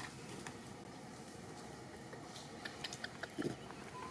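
A long-tailed macaque chewing mango: a few soft clicks in the second half, with a brief low thud about three and a half seconds in, over a steady hiss.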